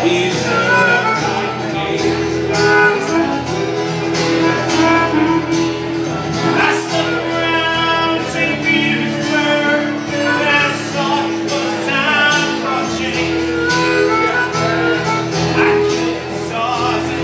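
Live duo of strummed acoustic guitar and harmonica, the harmonica playing long held notes over the guitar, with a man singing.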